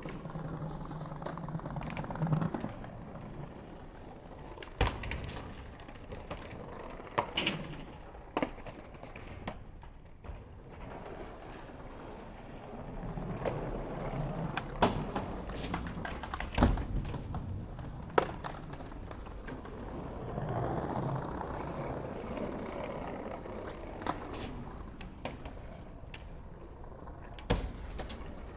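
Skateboard wheels rolling steadily, with sharp knocks from the board striking the ground every few seconds, about nine in all.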